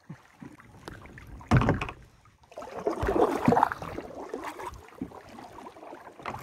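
Knocks and handling noise on a fishing kayak: a sharp thump about one and a half seconds in, then a couple of seconds of irregular clattering and rustling.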